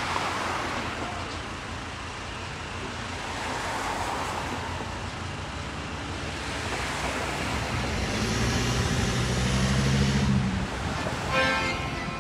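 Street traffic: a motor vehicle passes close by, its engine hum and tyre noise building to a peak about eight to ten seconds in, then fading.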